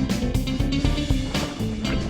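Background music: a guitar-driven track with a steady beat.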